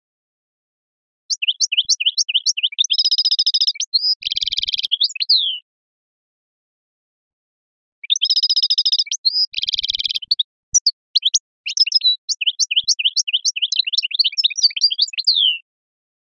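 European goldfinch singing a long song of rapid twittering notes mixed with buzzy trills, in two bouts with a pause of about two seconds in the middle.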